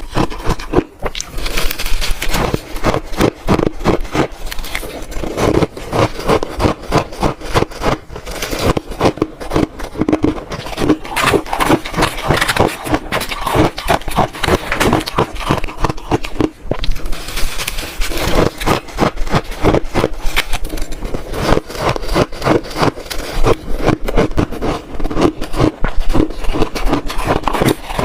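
Close-miked crunching of shaved ice being bitten and chewed: a dense, unbroken run of sharp crackling crunches.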